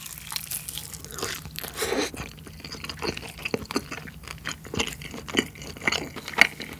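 Close-miked chewing of sauce-coated fried chicken: irregular crunches and crackles of the fried coating being bitten and chewed.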